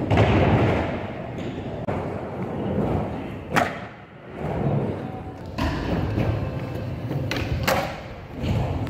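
Skateboard wheels rolling on a concrete skatepark floor with a steady rumble, broken by a few sharp knocks of the board, the loudest about three and a half seconds in.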